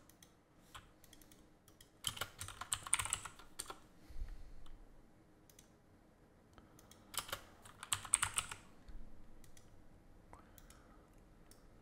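Computer keyboard typing in two short bursts, about two seconds in and again about seven seconds in, with a few single clicks between them.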